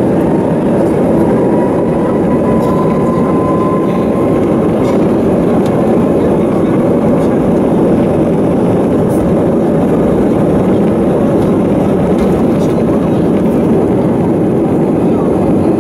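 Jet engines of an Airbus A320-family airliner at takeoff thrust, heard inside the cabin over the wing during the takeoff roll: a loud, steady engine noise, with a faint whine that rises slightly in the first few seconds.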